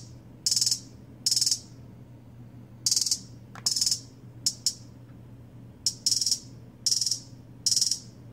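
Trap hi-hat sample in Maschine 2 sounding as short, bright, rapid hits, mostly about every 0.8 s with some gaps, over a low steady hum.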